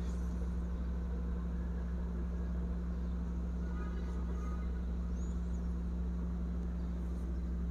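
A steady low background hum, even in level throughout.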